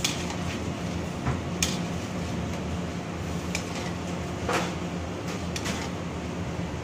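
Kitchen background: a steady low machine hum with a few short knocks and clatters, one near the start, one a second and a half in, and two around five seconds in.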